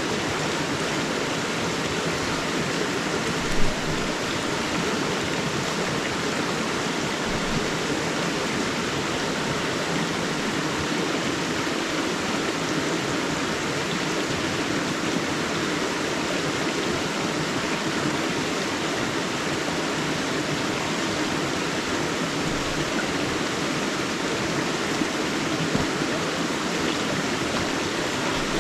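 A river running over rocks through a forest: a steady, even rush of flowing water. A single brief louder sound stands out about three and a half seconds in.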